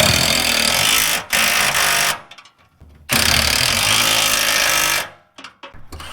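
Impact wrench hammering a fuel tank mounting nut tight, in three bursts, the last the longest, then a few short blips.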